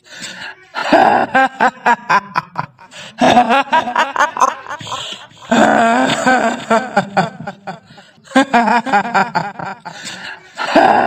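Kuntilanak ghost laugh: a woman's cackling "hihihi" in repeated bursts with short pauses between them, made as a horror sound effect.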